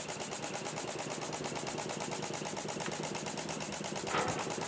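Small single-acting model steam engine running on compressed air, ticking over with rapid, even exhaust beats as it drives a model pump jack.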